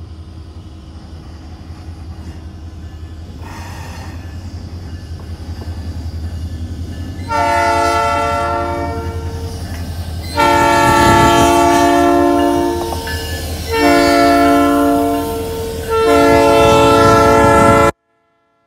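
Diesel freight locomotive approaching, its engine rumble growing louder, then sounding its multi-chime air horn in four blasts: long, long, short, long. This is the standard grade-crossing signal for a train passing through without stopping. The last blast cuts off abruptly.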